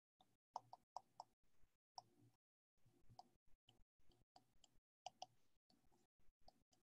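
Faint, irregular clicks and taps of a stylus writing on a tablet screen, against near silence.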